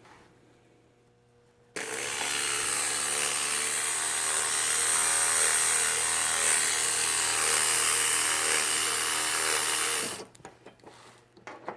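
Osias 100 psi in-line fuel pump, a copy of the Bosch 044, running dry with no fuel through it. It switches on about two seconds in with a steady, high-pitched electric whine and hiss that is pretty loud, runs for about eight seconds, then cuts off suddenly. A few light clicks follow.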